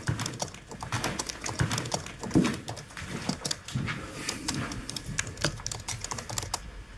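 Rapid, irregular typing on a keyboard: a dense run of key clicks, as a police interview record is typed up.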